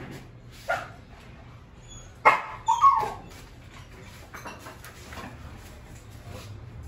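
A dog barking: one short bark near the start, then three quick, louder barks a little over two seconds in.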